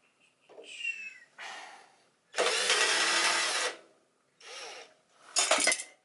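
Cordless drill-driver running in short bursts, backing out the screws that hold the hot-side cooling fan in a mini fridge. The longest, loudest run is about a second and a half in the middle, and a loud burst with a sharp knock comes near the end.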